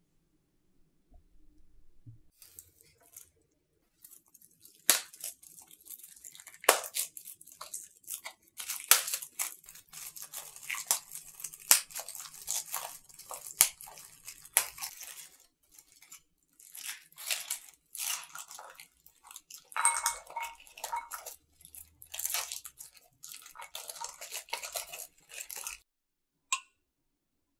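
Kitchen preparation sounds: irregular scraping, rustling and sharp clicks of utensils against dishes, in bursts that stop near the end.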